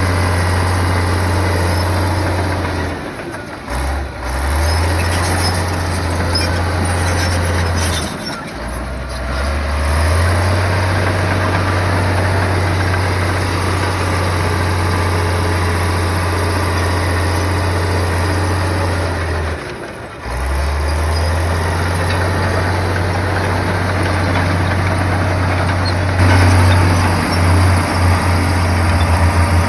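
Heavy earthmoving machine's diesel engine running steadily with a deep hum, dipping briefly three times (about 3, 8 and 20 seconds in) and picking back up, then running louder and unevenly near the end.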